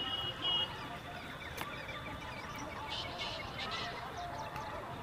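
Faint bird chirps over quiet outdoor background noise, with a short high whistle-like tone at the very start.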